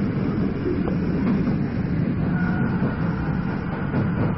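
Yokohama Municipal Subway Blue Line 3000V-type train running, heard from inside the car: a steady rumble of wheels on rail, with a brief faint whine about halfway through.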